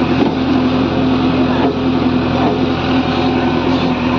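JCB backhoe loader's diesel engine running with a steady, even hum.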